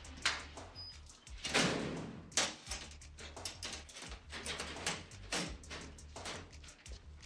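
Metal door handle and latch being worked by hand: a string of irregular clicks and knocks, a few of them louder.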